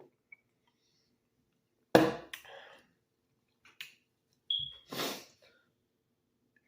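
A few short, sharp knocks or clatters, the loudest about two seconds in and another just after five seconds, with smaller ticks between them.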